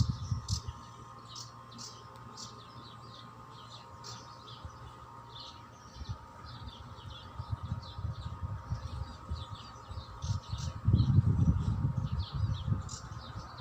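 Many small birds chirping in quick, short high calls throughout. A low rumbling noise, louder than the birds, fades out in the first second and returns about ten and a half seconds in for two or three seconds.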